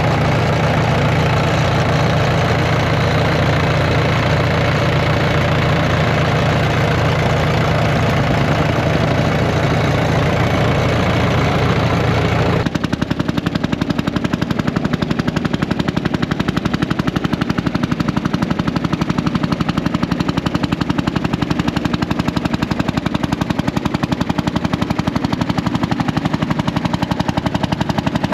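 Old Caterpillar D4 (7U) crawler tractor's engine running loudly. A steady heavy drone changes abruptly, about twelve seconds in, to a fast, even pulsing beat.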